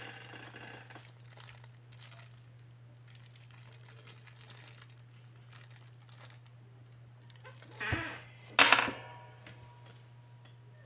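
A small clear plastic bag of brass valve adapters crinkling softly as it is turned over in the hands. About eight seconds in come two louder, brief handling rustles as the bag is put down and the paper instruction leaflet is picked up.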